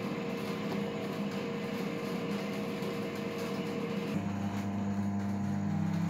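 Electrolux EMS3082CR microwave oven running in combination mode (grill plus high microwave power), a steady hum. About four seconds in the hum changes and grows deeper.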